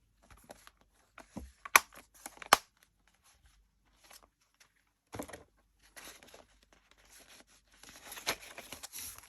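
Packaging being handled and torn open: scattered crinkling and tearing with sharp clicks, the two loudest just under two seconds in and about half a second apart, and denser crinkling near the end.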